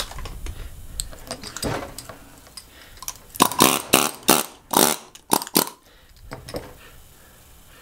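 A few light clicks and knocks, then, about three and a half seconds in, a pneumatic air chisel hammering in a string of short loud bursts over about two seconds. It is driving the copper windings out of an electric motor's steel stator core.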